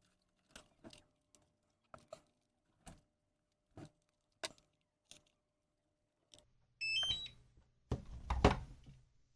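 DJI Mini 2 SE drone powering on: a quick start-up chime of short beeps stepping up in pitch, about 7 seconds in, followed by a faint steady hum. Around it are light clicks and knocks of handling, with a louder cluster of knocks near the end.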